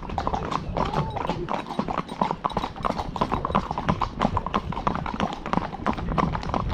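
Hooves of several ponies clip-clopping on a tarmac road, a continuous run of overlapping clops from a line of ponies walking one behind another.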